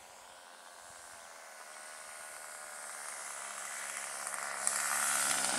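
Model airplane's small glow engine running with a steady buzzing note, growing louder as the plane flies in low toward the field.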